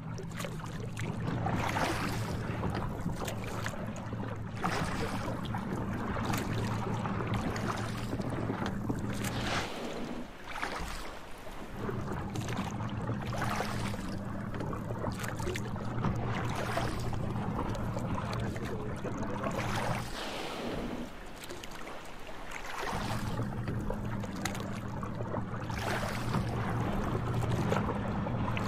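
Small boat's motor idling steadily, a low hum that drops out twice, about ten and twenty seconds in, with wind buffeting the microphone throughout.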